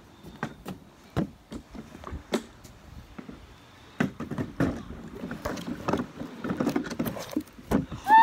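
Irregular knocks, thumps and scuffs of feet and hands climbing on a plastic playground slide, with phone handling noise. The scuffing gets busier in the second half, and a short high squeak comes at the very end.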